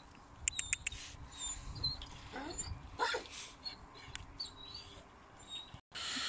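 Small birds chirping in the background, with a quick run of light clicks about half a second in and two short rising squeaks around the middle.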